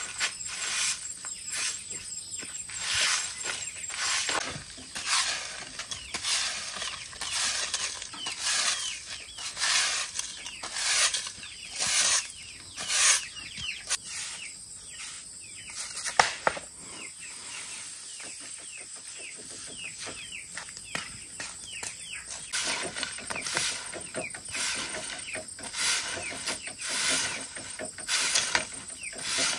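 Chicks peeping in quick, high falling chirps over a regular stroke about once a second from work by hand. The strokes ease off for a few seconds in the middle, leaving the peeping clearer.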